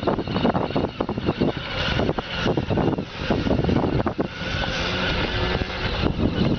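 Small engine of a youth ATV running steadily as it is ridden across loose dirt.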